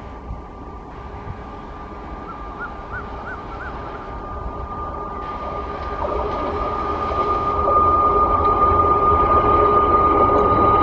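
WAP 4 electric locomotive hauling a passenger train on approach, its running noise growing steadily louder, with a steady high-pitched whine throughout.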